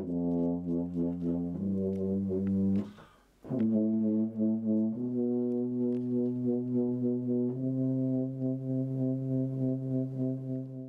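Solo tuba playing: a run of short, quickly tongued notes, a brief break about three seconds in, then a few long held low notes, ending on one held note of about three seconds.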